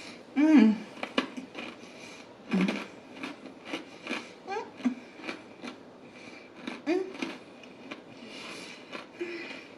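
Close-miked chewing of a mouthful of salad, wet mouth clicks and crunches coming every fraction of a second. A few short pitched squeaks of wheezing breath or hummed 'mm's rise or fall in pitch in between.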